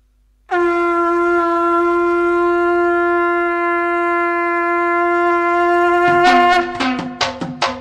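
A wind instrument holds one long, steady, horn-like note for about five and a half seconds. Near the end, a fast run of drum strokes on two pitches takes over, about six strokes a second.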